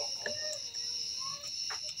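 Faint distant voices over a steady high-pitched hum, with a light click about a second and a half in.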